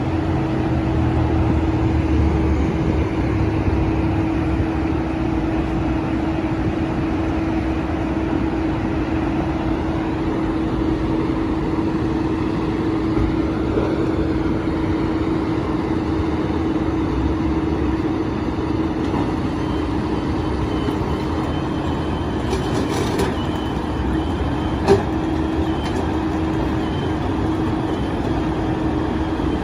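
Flatbed tow truck's engine running steadily, with a steady whine over its low rumble, and a single sharp click near the end.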